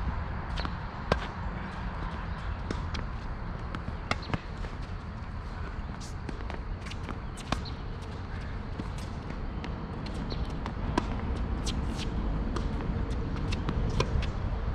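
Tennis balls struck by racquets and bouncing on a hard court during a rally: a series of sharp pocks a second or more apart, one just before the end as the near player hits a forehand.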